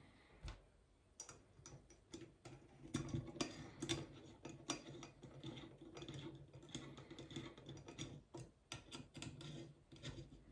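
Faint, irregular small clicks and ticks of an M4 bolt being turned by hand through the back plate of a stove fan's motor-and-heat-sink assembly, threading it in hand-tight.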